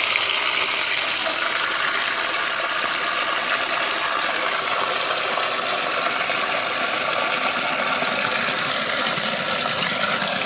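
A strong stream of running water gushing steadily into a perforated aluminium colander full of mantis shrimp, splashing and churning as the basin under it fills.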